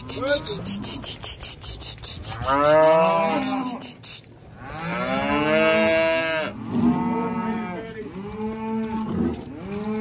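Beef steers mooing, a run of about five deep, drawn-out calls, the longest about halfway through. Over the first four seconds a fast, even clicking, about six a second, runs underneath.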